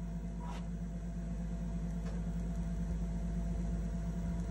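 Steady low electrical hum from a vintage audiovisual training-program player during a pause in its narration, with a couple of faint brief clicks.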